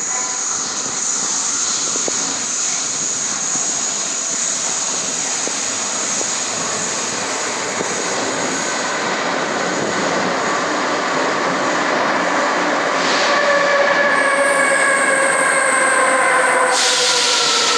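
Rome Metro Line A MA300-series train pulling into an underground station. Its rumble grows louder as it approaches. In the last third, a whine of several tones falls slowly in pitch as the train slows, and a hiss starts near the end.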